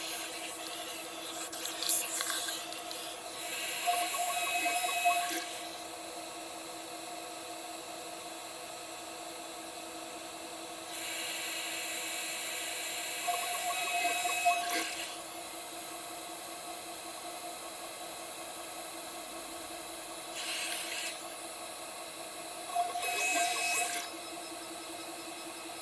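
Spindle of a CNC 6040 router running with a steady whine, broken three times, roughly every ten seconds, by a few seconds of louder, hissy cutting noise with a higher whine as the end mill cuts into the aluminium plate.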